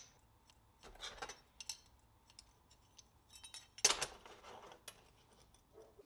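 Scattered light clinks and short scrapes of small hard objects being handled, with two louder scraping rattles about a second in and just before four seconds in.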